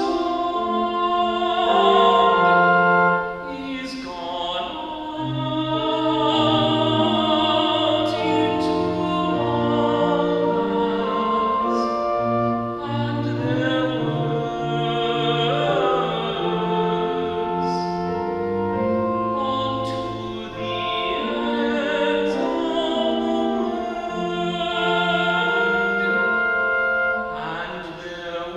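Pipe organ accompanying classical singing: trained voices with wide vibrato over steady held organ chords and a moving bass line. Loudness dips briefly at phrase breaks, about three seconds in and near the end.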